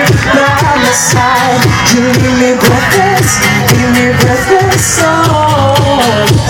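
Live pop song played loud over a PA: male vocals sung over an amplified backing track with a steady beat.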